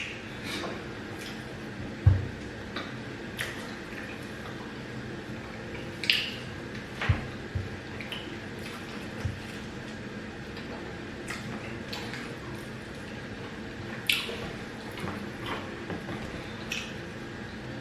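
Wet eating sounds from fufu with peanut soup: scattered squelches, mouth smacks and chewing clicks. Two dull knocks, about two and seven seconds in, are the loudest sounds.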